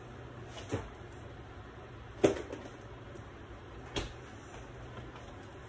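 Three short, light knocks of things being handled in a kitchen, spaced about a second and a half apart with the middle one loudest, over a faint steady low hum.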